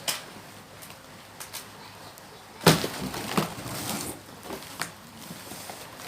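Cardboard box and packing being handled during unboxing: a sharp knock about two and a half seconds in, followed by a second or so of crackling, then a few lighter knocks.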